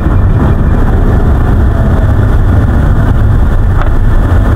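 A car driving at road speed, heard from inside the cabin: a steady, loud rumble of road, wind and engine noise.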